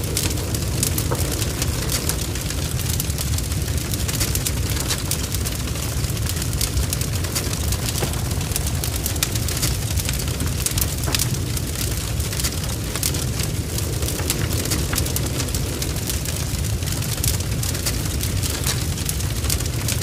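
Wood fire burning steadily: a constant low rumble of flames under dense, continual crackling and spitting of burning logs.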